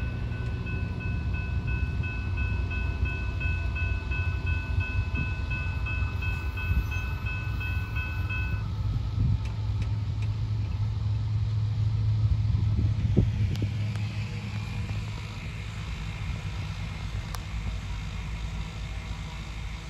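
A pair of rebuilt Union Pacific C44ACM diesel-electric locomotives running past on a test run: a low engine rumble that builds to its loudest about twelve seconds in, then fades. A steady high tone sounds over it and stops about eight seconds in.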